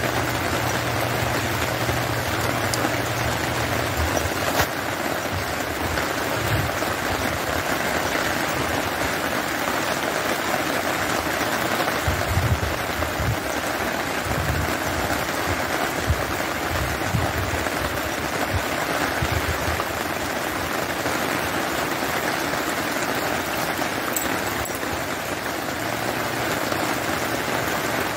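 Steady rain falling on wet ground and standing water, an even hiss throughout. A low steady hum sits under it near the start and comes back near the end.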